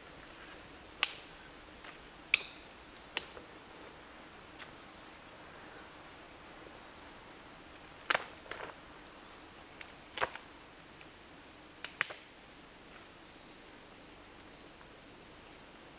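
Dry sticks and twigs snapped by hand: a string of sharp, irregular snaps and cracks, some coming in quick pairs.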